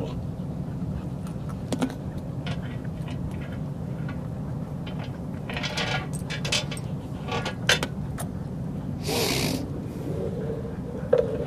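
Scattered light clicks and clinks from a leashed Siberian husky moving about on a wooden deck, over a steady low background rumble, with one short hiss about nine seconds in.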